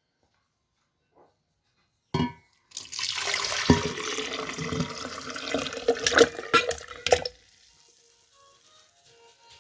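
Water pouring steadily for about four and a half seconds, with a knock just before it starts and a few sharp clinks during the pour, then stopping abruptly. Soft background music notes follow faintly.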